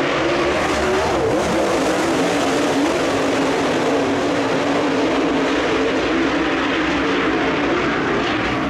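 Dirt late model race cars' V8 engines running together on the track. Several engine notes overlap and waver, holding at a steady, loud level.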